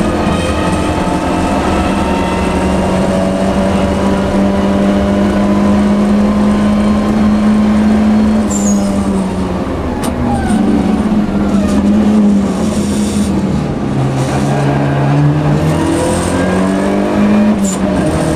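Volvo 242 Turbo rally car's turbocharged four-cylinder engine heard from inside the cabin at speed. It holds steady revs for several seconds, eases off about halfway through, drops lower about two-thirds of the way in, then climbs back up near the end. A couple of short clicks are heard along the way.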